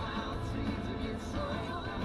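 Background music with a steady bass line and a wavering melody over it.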